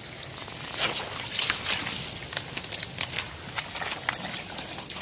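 Dry dead twigs and brush rustling and crackling in quick, irregular snaps as the pile is pulled apart and trodden on.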